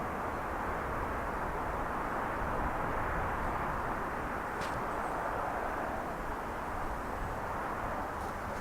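Steady distant outdoor background noise, an even hiss-like rumble with no distinct events, and one faint click about halfway through.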